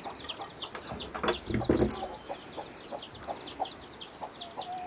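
Domestic chickens clucking now and then under a fast, continuous run of short, falling high chirps from small birds. About a second and a half in, a few loud knocks and handling noises stand out.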